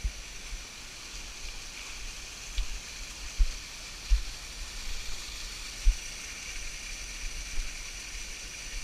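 Steady rush of water from a jungle creek and its small waterfalls, with a few dull low thumps scattered through.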